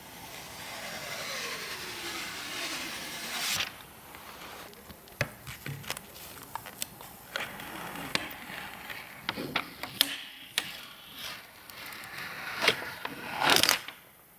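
Computer parts being handled: a few seconds of hissing rubbing with a falling sweep, then a run of separate clicks, knocks and short rubs of plastic and metal, the loudest just before the end.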